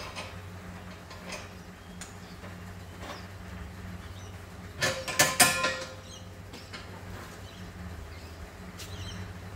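A short burst of metallic clanking and rattling about halfway through as the MIG welder's gas cylinder is handled on its trolley, over a steady low hum, with a few light ticks around it.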